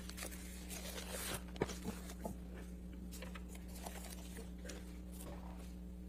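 Quiet room tone: a steady low electrical hum with scattered faint clicks and rustles.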